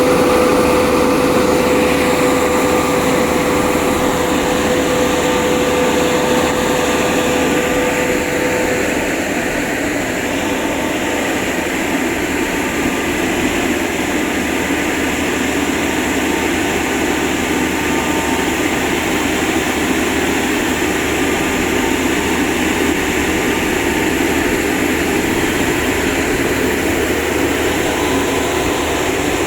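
Small electric-hydraulic well drilling rig running: a steady machine drone, with a whine over it that drops away about nine seconds in.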